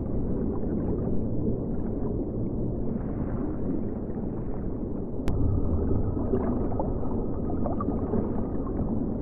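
Underwater ambience: a steady low rumble with bubbling and crackle, broken by one sharp click about five seconds in, after which a faint thin steady tone hums.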